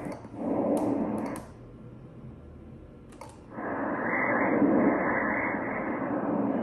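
Doppler audio from an ultrasound machine sampling blood flow in the fetal ductus venosus: a rushing whoosh, briefly about half a second in, then continuous from about three and a half seconds on, while the fetus makes breathing movements. A few sharp clicks, from the machine's controls, come before the second stretch.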